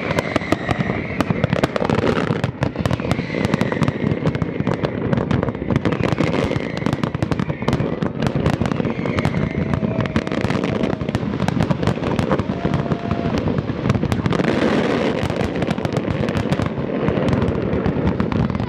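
Large aerial fireworks display: a dense, unbroken barrage of shell bursts and crackling, many bangs a second.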